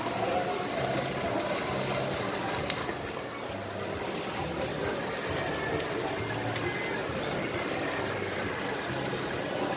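Steady background din of a busy market, with a faint high whine and indistinct low sounds beneath it.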